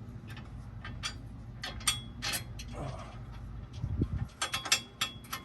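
Irregular metallic clicks and clanks from hand tools and small bolts being worked on a truck's skid plate, over a low steady hum, with a dull thud about four seconds in.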